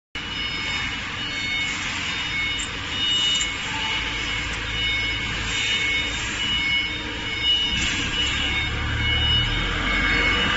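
A vehicle reversing alarm beeps about once a second over a low engine rumble and general factory noise. The rumble gets stronger about four seconds in.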